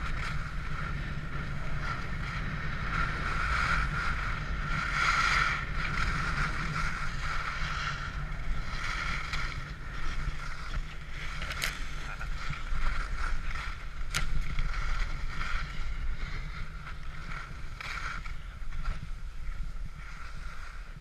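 Wind buffeting the microphone and the hiss of sliding over snow on a downhill ski run: a steady rumbling rush that swells and eases with speed, with two sharp clicks around the middle.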